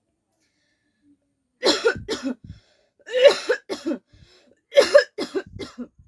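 A woman coughing in three bouts about a second apart, each a quick run of several sharp coughs.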